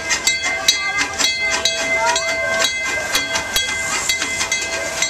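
Small narrow-gauge steam locomotive, the Grand Sierra Railroad's No. 83 'Cordelia K.', rolling slowly past with a steady hiss of steam. Repeated sharp clicks and clanks, about three a second, come from its running gear and the rails.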